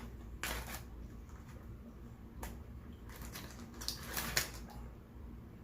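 Close-miked eating sounds: quiet chewing of fried chicken and fries, with a few short sharp mouth or food clicks about half a second, two and a half, and four seconds in.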